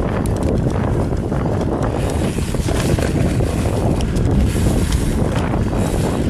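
Wind buffeting the microphone as a Commencal Meta TR29 mountain bike rolls down a dry dirt trail, with a steady crunch of tyres over dirt and leaves and scattered clicks and rattles from the bike.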